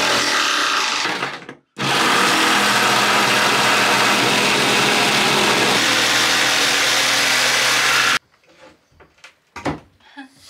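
Corded electric jigsaw cutting through a wooden cabinet panel; it stops briefly about one and a half seconds in, then cuts steadily again until it stops abruptly about eight seconds in. A few light knocks follow.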